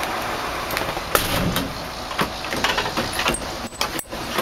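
1981 Ford F100's 5-liter carbureted V8 idling, heard from inside the cab. Several sharp clicks and knocks come from the door panel and window hardware being handled.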